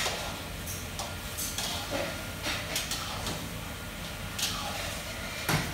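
Scattered clicks, knocks and clatter of kitchen work over a steady low hum, with the loudest knocks right at the start and near the end.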